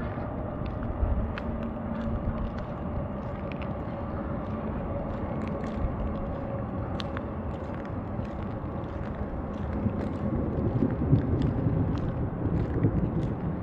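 Distant city traffic rumble with a faint steady drone that fades over the first half and scattered light ticks; the low rumble swells near the end.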